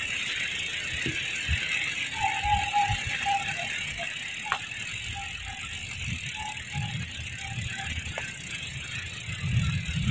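A bicycle pushed on foot over grass, its freewheel ticking steadily, with footsteps and light bumps. Two runs of faint, short repeated high notes sound in the background.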